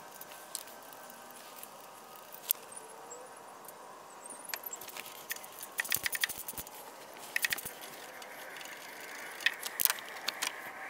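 Hand wrench clinking and clicking against the metal of a turbo diverter valve as its bolts are undone: scattered light metallic clicks, with several quick runs of clicks from about the middle on.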